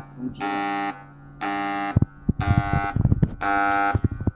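Alarm buzzer on a carton die-cutting machine, sounding repeated half-second beeps about once a second. A few irregular knocks sound under the beeps in the middle.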